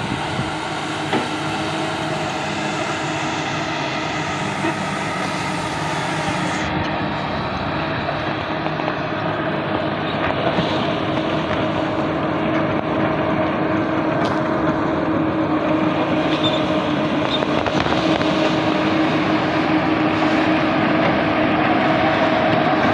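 Komatsu PC200 hydraulic excavator's six-cylinder diesel engine running steadily as the boom and bucket are worked, with a steady tone over the engine noise that grows a little louder in the second half.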